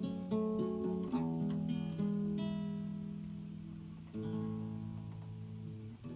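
Solo acoustic guitar, small-bodied, fingerpicking the closing bars of a song: a quick run of notes, then a chord about two seconds in and another about four seconds in, each left to ring and die away.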